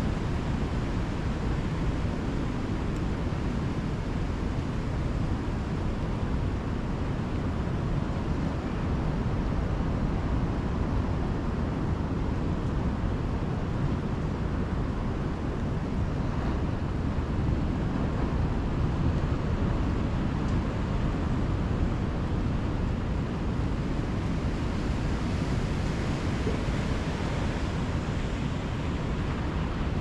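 Ocean surf breaking in stormy weather: a steady rush of wash with wind rumbling on the microphone, swelling a little now and then.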